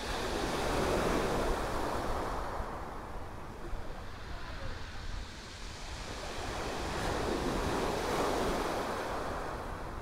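Small sea waves breaking on a shingle beach and washing back over the pebbles. The wash swells twice, once about a second in and again near the end.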